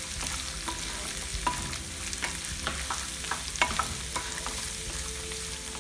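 Wooden spatula stirring and scraping diced carrots, shallots and dried chillies around a frying pan, over a low sizzle of oil on a medium flame. Irregular scrapes and taps, the sharpest about three and a half seconds in.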